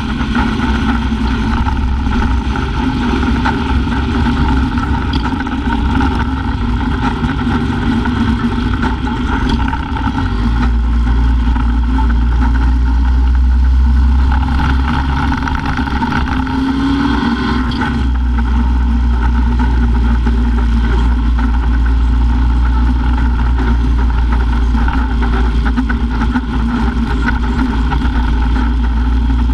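Steady wind and road noise with a car engine running, picked up by a camera on the hood of a car driving at road speed. The low wind rumble on the microphone grows heavier about ten seconds in.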